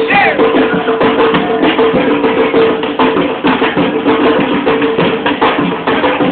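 Upbeat Latin percussion music, batucada-style, with dense, fast drum and wood-block strokes over a couple of held notes.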